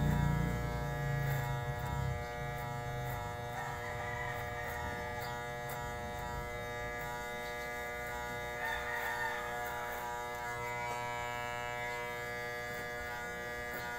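Corded electric hair clippers buzzing steadily while cutting hair. A low rumble fades out over the first two seconds. A rooster crows in the background twice, about four and nine seconds in.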